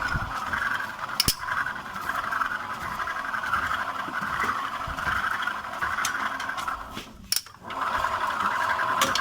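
Yamaha NMAX scooter's CVT giving a steady rough, grinding whir, with a couple of sharp clicks and a short break about seven and a half seconds in. It is the rough CVT noise the owner complains of, which the mechanic traces to the pulley bearing.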